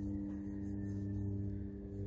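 Steady low hum made of several held tones, unchanging throughout.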